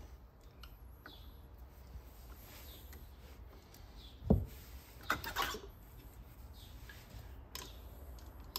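Hand tool and screws handled at a marine engine's brass raw-water pump: faint scraping and clicks, one dull knock about four seconds in, then a short cluster of clicks about a second later.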